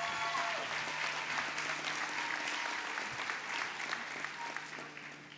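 Large audience applauding, the clapping dying down toward the end.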